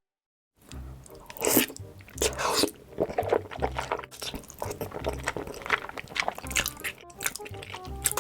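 Close-miked eating of noodles, a run of chewing and biting sounds, over background music with a repeating bass beat. It starts after about half a second of silence.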